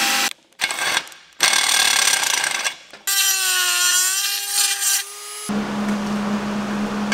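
Power drill boring a hole through a stainless steel exhaust pipe in short bursts, followed by a high-speed rotary tool whining as it grinds the hole wider, its pitch dipping under load and recovering. About five and a half seconds in, this gives way to a steady low hum with an even hiss as welding of the O2 sensor bung begins.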